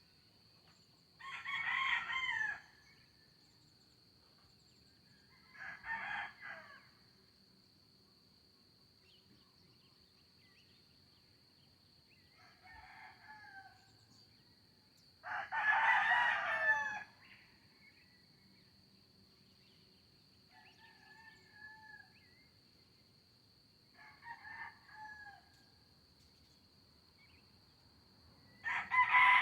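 Roosters crowing, cock-a-doodle-doo, seven crows in turn, some loud and some faint, the loudest about halfway through. A steady high-pitched tone runs underneath.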